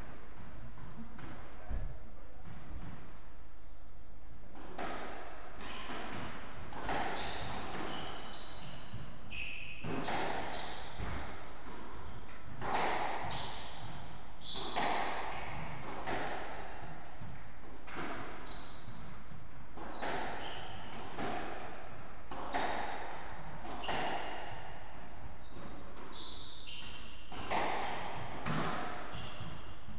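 Squash rally: the rubber ball struck by rackets and smacking off the court walls about once a second, starting a few seconds in, with short high squeaks of court shoes on the wooden floor between the hits.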